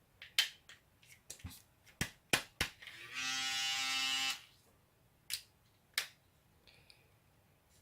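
Sharp clicks of plastic parts being handled, then the Panasonic ES-SL41 electric shaver's motor buzzes steadily for about a second and a half before stopping, followed by two more clicks.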